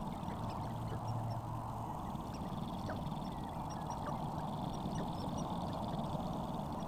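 Sharp-tailed grouse displaying on a lek: a steady chorus of calls from several birds, with no break.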